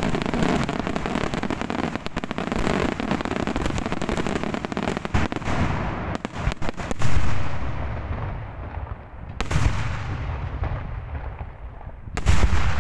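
Daytime aerial fireworks bursting overhead. A rapid, dense string of bangs and crackles runs for the first several seconds, then three separate louder booms follow a few seconds apart, with low rumble between them.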